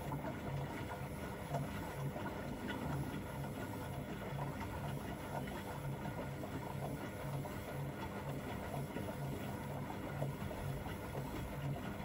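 Beko WM8120 front-loading washing machine running during a test wash: a steady hiss and hum with a low pulse about twice a second.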